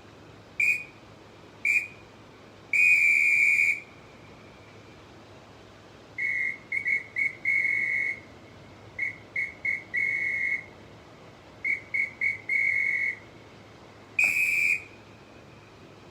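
Large ACME metal referee whistle blown in a string of blasts at one steady high pitch: two short blasts and a blast of about a second, then three runs of three quick blasts each ending in a longer blast, and another long blast near the end.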